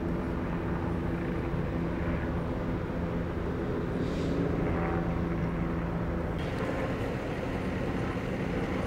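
A steady engine drone over a low rumble; its humming tone drops away about six and a half seconds in.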